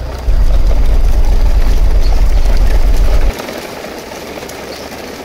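A loud, steady low rumble for about three seconds that cuts off suddenly, over a softer continuous crunching rustle of the plastic toy dump trucks' wheels rolling over dirt.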